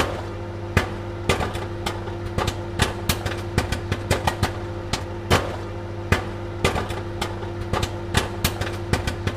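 Popcorn kernels popping at irregular intervals, a few sharp pops a second, over a steady low hum.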